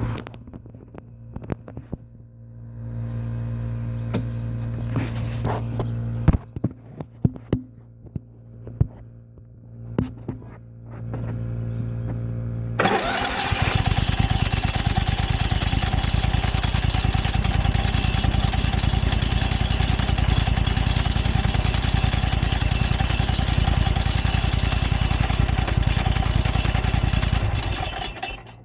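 Exmark zero-turn mower engine running with scattered clicks. About halfway through, a much louder, harsh noise starts abruptly as the PTO clutch engages, runs steadily for about fifteen seconds, then cuts off suddenly. The owner calls this noise horrible and blames the new aftermarket clutch, which has about 15 hours of use and seems to be getting worse.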